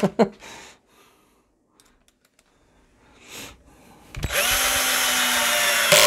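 Cordless drill/driver turning a screw in a speaker's back panel. It runs steadily for nearly two seconds in the second half, then stops abruptly. Before that there are a few light clicks of handling against near silence.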